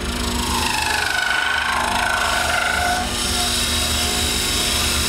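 Small benchtop wood lathe running while a hand chisel cuts into a spinning acrylic blank, the cut giving a shrill, wavering squeal over the steady machine noise.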